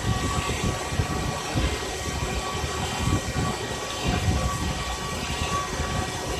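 Wasino CNC milling machine milling a plastic-injection mould: a steady spindle whine with several held tones over an uneven, rumbling cutting noise.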